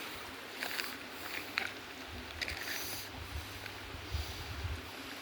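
Steady rush of flowing stream water, with scattered light clicks and scuffs over it.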